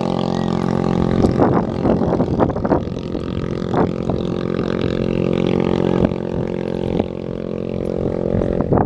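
Small racing boat's engine running steadily at high revs, an even droning pitch, with a few short louder bursts between about one and three seconds in and again near the end.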